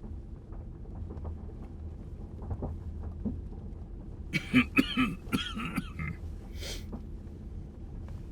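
A man's voice letting out a quick string of about four loud, hacking, cough-like noises around the middle, followed by a sharp breath in, over a low steady rumble.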